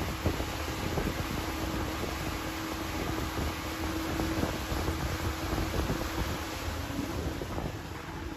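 V4 outboard motor pushing a small boat under way, a steady drone with wind buffeting the microphone and the wake rushing behind.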